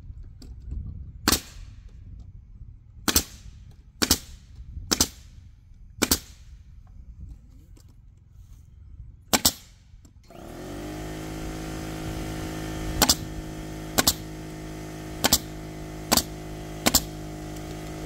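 Nail gun driving nails into the wooden box: eleven sharp shots, spaced one to three seconds apart. About ten seconds in, a motor starts up and keeps running steadily under the last five shots.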